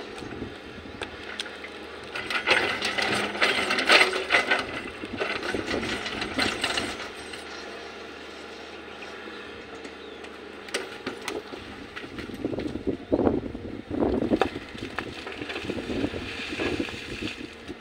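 Volvo crawler excavator digging: irregular clanks, knocks and scraping as the bucket works into rocky soil, coming in two busy spells with quieter running between.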